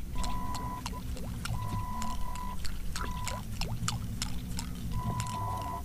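Water splashing and gurgling with many sharp clicks, under a low rumble. A steady high tone comes and goes several times.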